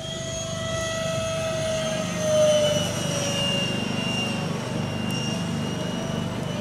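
Electric ducted fans of a Freewing Eurofighter RC jet whining steadily in flight. The whine swells about two and a half seconds in, then drops a little in pitch as the throttle and distance change through the aerobatics.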